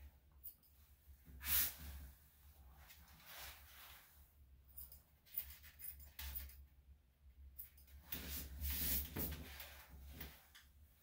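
Faint snipping and rustling of grooming scissors trimming a dog's coat, with a louder burst about one and a half seconds in and a longer stretch of rustling near the end.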